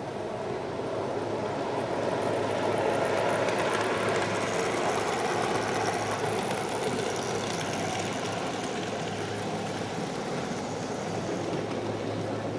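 Ride-on miniature locomotive running along the track with a steady mechanical running noise. It grows louder a few seconds in as it passes close, then slowly fades as it moves away.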